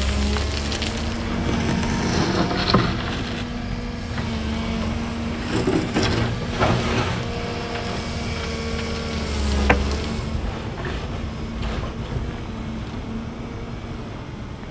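Volvo ECR235EL excavator's engine running steadily while its tiltrotator bucket scrapes and pushes gravel and stones. There are gritty scraping bursts with sharp stone clicks a few times, loudest about three seconds in and near ten seconds in.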